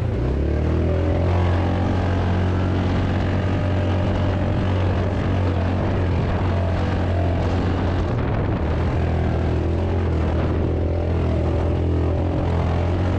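Engine running steadily, a low constant drone that holds one pitch throughout.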